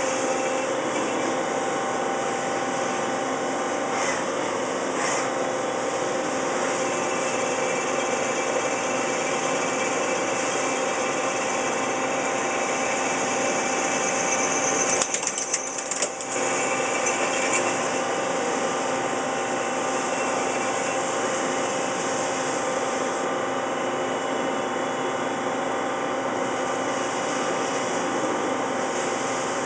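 Hwacheon Hi-Tech 200A CNC lathe running, its spindle turning a metal disc while a boring bar cuts the inside bore. It makes a steady machine whine with several held tones, with a brief dip and break about halfway through.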